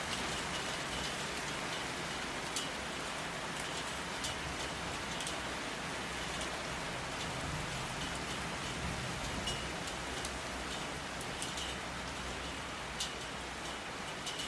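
Steady rain falling, with individual drops ticking sharply on a hard surface at irregular moments throughout.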